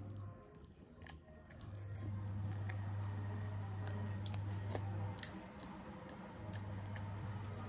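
Close-miked chewing of boiled yam: soft wet mouth sounds and light clicks. Under it a low steady hum that cuts out twice, briefly near the start and again about two thirds of the way in.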